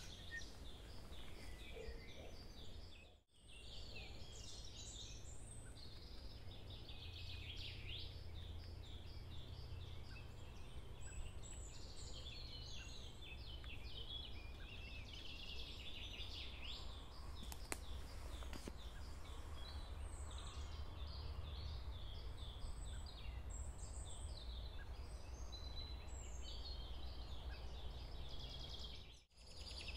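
Several songbirds chirping and trilling over a steady low rumble. The sound drops out briefly twice, about three seconds in and near the end.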